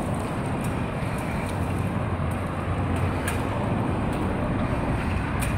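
Steady low rumble of freeway traffic mixed with wind noise on the microphone, heard from a moving bicycle, with a couple of faint ticks.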